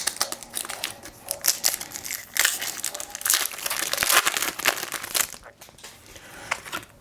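Foil booster pack wrapper being torn open and crinkled by hand, an irregular run of crackling and rustling that thins out near the end.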